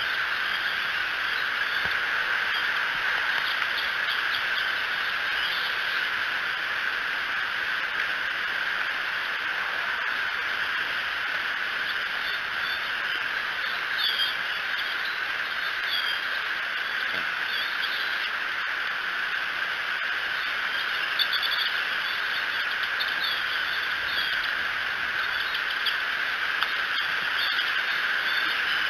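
Outdoor ambience at a bald eagle nest: a steady, even chorus runs throughout. Several short high curved calls come about halfway through and again near the end.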